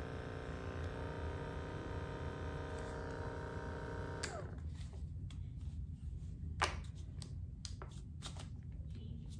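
Handheld percussion massage gun's motor running at a high speed setting with a steady hum, then winding down with a falling pitch as it is switched off about four seconds in. After that come scattered clicks and knocks of the gun being handled, one sharper knock about halfway through.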